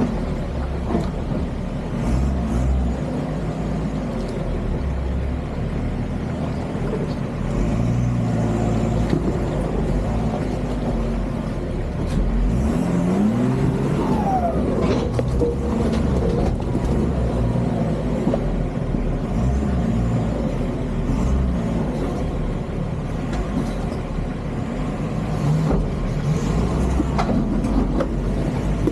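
Nissan Patrol Y61 engine running at low revs while off-road crawling, the revs rising and falling as it works over the terrain, with a clear rev-up about halfway through.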